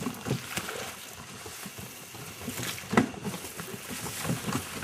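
Men pushing a heavily loaded hand-drawn cargo wagon along a dirt track: irregular scuffing footsteps and knocks and rattles from the wagon, with one sharp thump about three seconds in.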